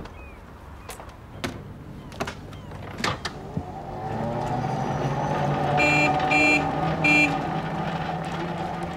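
A few scattered knocks, then a vehicle's motor hum building up and running steadily, with three short, high beeps from a horn or warning signal in its middle.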